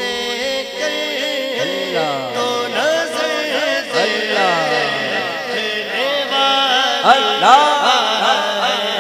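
Devotional naat singing: drawn-out, ornamented vocal lines that slide up and down in pitch, with no clear words, between the sung verses.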